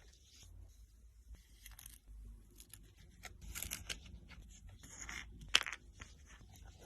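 Fidget toys being handled: scattered soft crunching and crinkling noises, with one sharp snap about five and a half seconds in.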